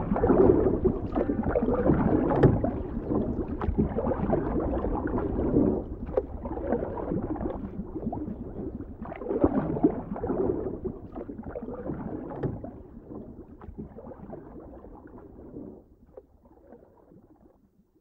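The demo's electronic soundtrack in its closing passage: a dense, low, noisy texture that swells every few seconds, then fades out and stops about sixteen seconds in.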